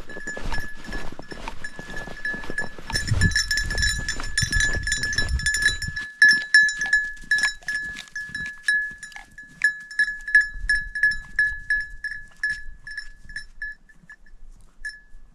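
A goat's neck bell ringing as the goat moves, one clear metallic tone jangling almost continuously at first. It then breaks into separate strikes about two a second that fade out near the end, with one last ring just before the end.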